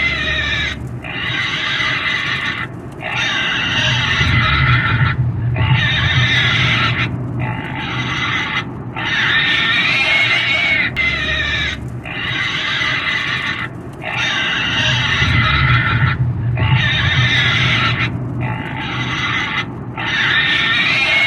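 Pig squealing and screaming over and over: long shrill squeals broken by short gaps every second or two. A low rumble runs underneath.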